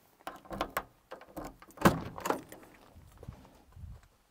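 Cab door of a Hyundai Robex 14-tonne excavator being unlatched and swung open: a few separate clicks and knocks from the handle, latch and door.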